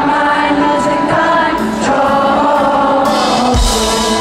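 Live rock band playing, with a lead singer over drums and other instruments. A loud hit with a bright crash comes near the end.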